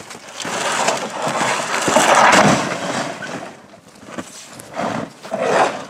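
Corrugated sheet-metal roofing panels scraping over a stack of cedar boards as they are dragged off, loudest about two seconds in, with a few shorter scrapes near the end.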